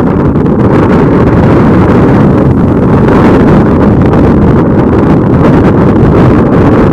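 Strong wind blowing across the microphone: a loud, steady low rumble that does not let up.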